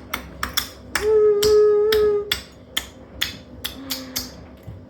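Blows on a washing machine being broken apart: about a dozen sharp, irregular knocks, with a steady held tone lasting just over a second, starting about a second in.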